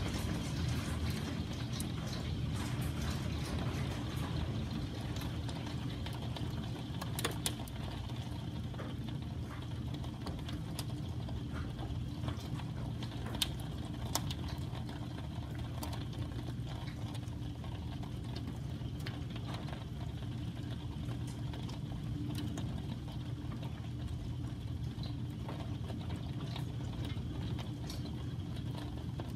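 Hail and heavy rain falling in a hail storm, heard from indoors through a closed window: a steady rushing with scattered sharp ticks of hailstones striking, a few louder ones a little after seven seconds and around thirteen to fourteen seconds in.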